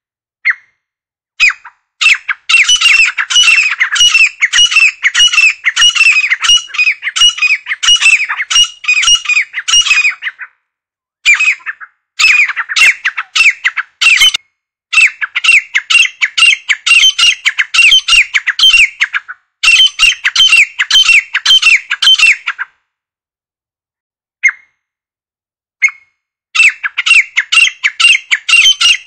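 Grey francolin calling: loud, shrill notes repeated quickly, several a second, in long runs broken by short pauses. Near the end the calling stops for a few seconds, with only two single notes, then starts again.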